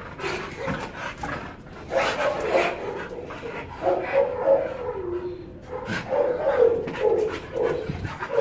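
Dogs vocalising in play with short yips and whines, in bursts about two, four and six seconds in.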